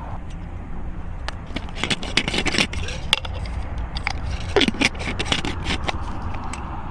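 Scraping and clicking handling noises from a glass mason-jar solar lantern with a metal screw lid and wire handle being picked up and set down, in a run of short sharp strokes from about a second in until near the end. A steady low rumble runs underneath.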